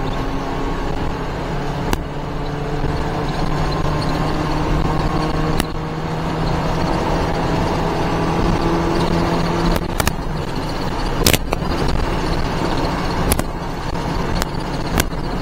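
Mitsubishi Delica pickup's engine heard from inside the cab at full throttle on the highway, its pitch climbing slowly as the truck gains speed, over steady road and wind noise. About ten seconds in the engine tone drops back into the road noise and a few sharp knocks follow.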